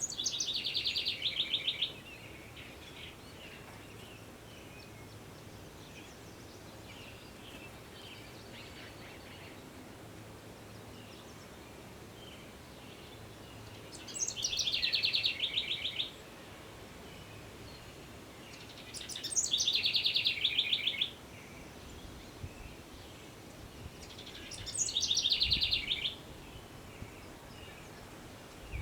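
A songbird singing four loud phrases of about two seconds each. Each phrase opens with a high note and drops into a fast trill. Fainter, more distant birdsong comes in between over a steady background hiss.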